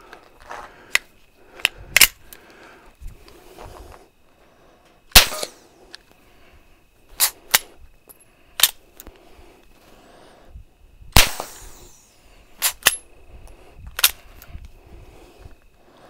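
Suppressed shots from a 9mm B&T Station Six bolt-action pistol with its wipe suppressor, the wipes still dry with no gel added, firing 115-grain rounds. The two loudest shots come about five and eleven seconds in, and between them come sharp clicks of the bolt being worked by hand to eject the case and chamber the next round.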